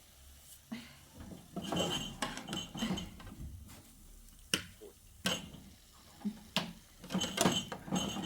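Irregular clinking and clattering of hard objects, like dishes or utensils being handled, with several sharp knocks that ring briefly.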